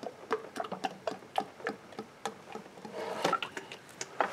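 Transmission fluid glugging out of an upturned plastic quart bottle into a funnel: an irregular run of short gurgling pops, several a second, as air gulps back into the bottle.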